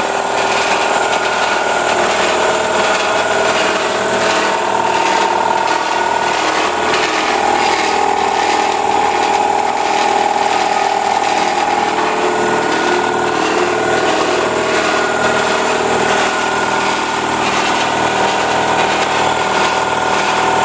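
Ingersoll Rand 8-gallon twin-tank wheelbarrow air compressor, an electric 230-volt single-phase unit, running steadily as its oil-lubricated piston pump fills the tanks.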